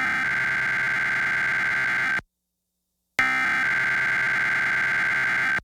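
Emergency Alert System SAME header: a buzzy, rapidly warbling digital data tone, sent twice. Each burst lasts about two and a half seconds, with a second of silence between them, and a third burst begins just after. This is the encoded header that opens a weekly EAS test.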